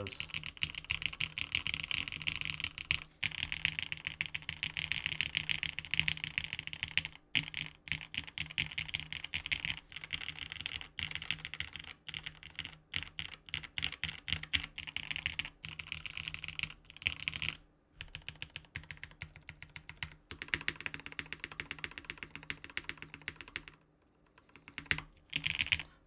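Fast, continuous typing on a Kaze TKL custom mechanical keyboard: Ultraglides linear switches lubed with 205g0 and filmed, on a polycarbonate plate in an O-ring mount, with ABS keycaps. A dense run of keystroke clacks with a few short pauses, thinning out near the end.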